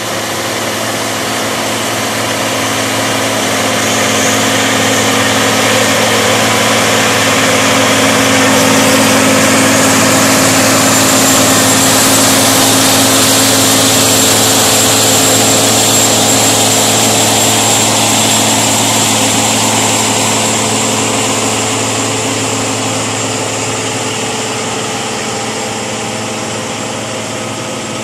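Large rubber-tracked tractor's diesel engine working steadily under heavy load, pulling a five-knife ripper 37 inches deep through compacted soil as it passes close by. The sound grows to its loudest about halfway through and then slowly fades, with a steady high whine over the engine hum.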